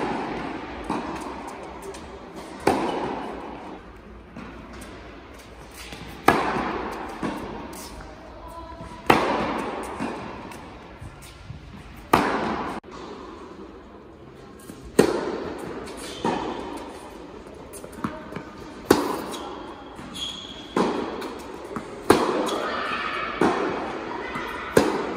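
Tennis ball struck by racket in a rally: a sharp pop about every three seconds, each trailing off in the echo of an indoor tennis hall, with fainter ball knocks in between.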